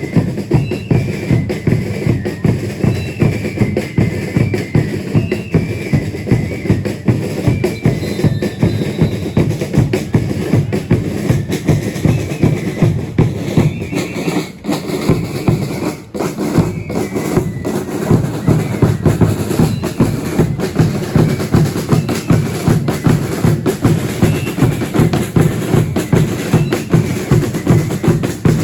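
A religious dance troupe's drums beat a steady, fast rhythm, with a high piping tune sounding over it at times. The beat dips briefly twice in the middle.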